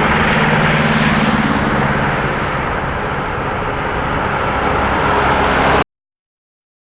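Jet airliner engine noise: a loud, steady rush with a low hum under it, which cuts off abruptly to dead silence just under six seconds in.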